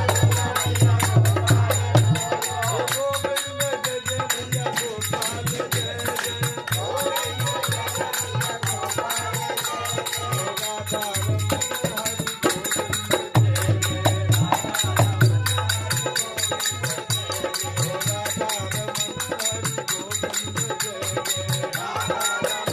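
Devotional bhajan: a voice singing over a steady jingling, rattling percussion and a low drum that pulses on and off.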